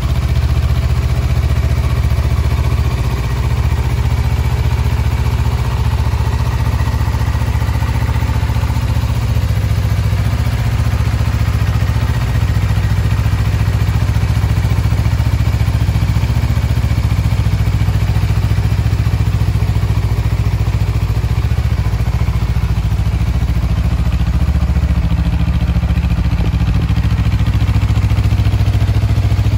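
Honda CBR250RR's parallel-twin engine idling steadily.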